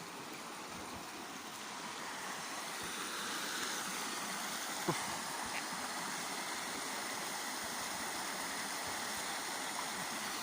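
Shallow river water flowing steadily, an even rush of running water, with one short click about five seconds in.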